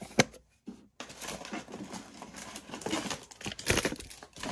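Hands rummaging through a plastic tote full of tangled cables and loose paper: crinkling and rustling with small knocks and clicks. It starts with a couple of sharp clicks, pauses briefly, then becomes continuous from about a second in and is loudest near the end.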